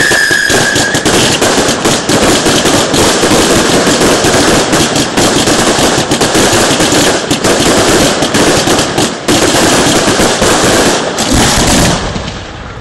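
Fireworks finale: a dense, continuous barrage of crackling bangs and pops, thinning out and dropping in loudness near the end. A firework's falling whistle fades out about a second in.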